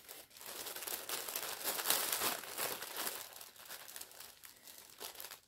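Small plastic bags of diamond-painting drills crinkling as they are handled, a dense rustle that is loudest about two seconds in and fades towards the end.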